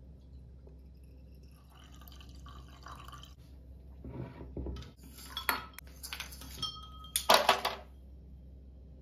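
Lemonade trickling from the tap of a glass drink dispenser into a tall drinking glass, then several glass clinks and knocks as the filled glass is handled and set down, the loudest near the end.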